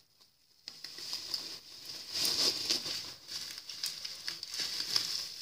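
Plastic bubble wrap crinkling and rustling as it is pulled off a scooter's handlebars, with many small irregular crackles. It starts after a brief silence, under a second in.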